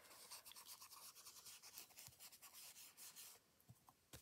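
Faint, quick, scratchy strokes of a stencil brush swirling graphite ink onto card stock, stopping about three and a half seconds in.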